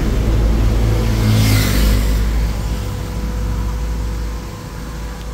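A motor vehicle going by: a low engine-and-road rumble that swells about a second in and fades away near the end.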